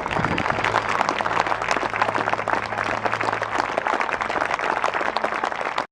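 Crowd applauding: many people clapping together at a steady level, stopping abruptly near the end.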